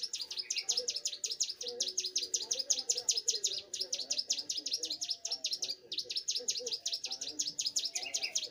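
Young prenjak gunung (a prinia) singing vigorously in a cage: a fast, unbroken run of sharp, high chipping notes, about eight a second, with a brief pause about six seconds in.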